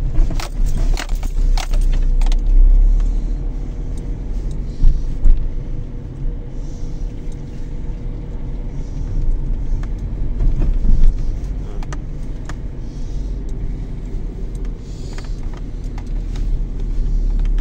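Peugeot 207 driving over a rough road: a steady road rumble with sharp clunks and rattles over the bumps, several close together in the first couple of seconds and more around the middle. The clunk is a suspension noise the owner can't place; he rules out the wishbones and drop links and wonders about the strut top mounts.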